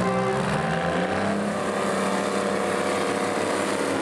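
Vintage farm tractor engines running at low speed as they pass, a steady low drone. A short horn note sounds right at the start.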